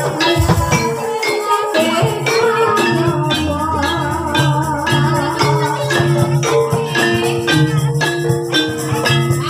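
Live Javanese gamelan music for an ebeg horse trance dance: a repeating melody of held, struck notes over a steady beat of drum and jingling percussion.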